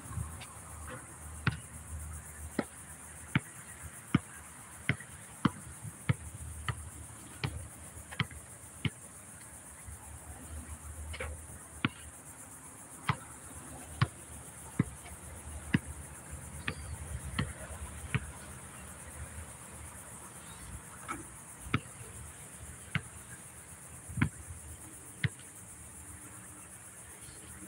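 A basketball dribbled on an outdoor hard court: a sharp bounce about every three-quarters of a second, with a few pauses between runs of dribbles. A steady high insect buzz runs underneath.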